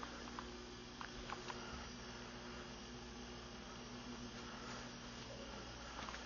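Quiet room tone: a steady electrical hum, with a few faint clicks in the first second or two.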